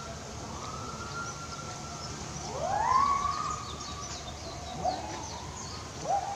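Distant siren wailing: several rising wails that climb and then hold a steady pitch. The loudest comes a little before halfway, and another begins near the end.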